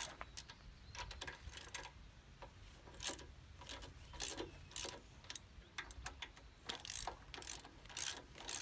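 Hand ratchet wrench with a hex bit clicking in short, irregular bursts. It is tightening the Allen-head bolts that draw the sickle bar mower's drive spud onto the gearbox, a little at a time.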